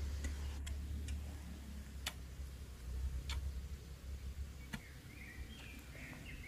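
Straight-bladed hoe (konjong) chopping into hard, very dry soil: five or six sharp strikes about a second apart, over a steady low rumble.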